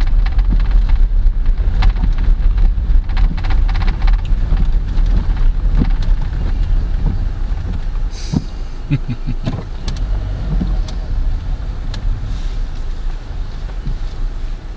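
Inside a moving car's cabin: steady low rumble of the car driving along, with a few light clicks and knocks over it.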